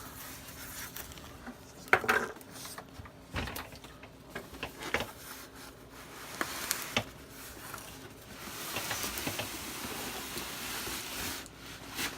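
Unboxing noises from a cardboard box and its styrofoam packing: scattered knocks and rubbing as pieces are lifted out, then a few seconds of steady scraping rustle near the end.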